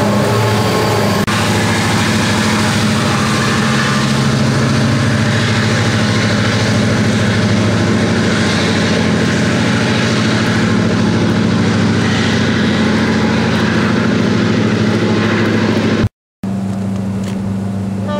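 Conrail diesel freight locomotives running past with a steady engine rumble under a loud rush of train and wheel noise. The sound breaks off for a moment near the end, then a more distant locomotive's engine is heard.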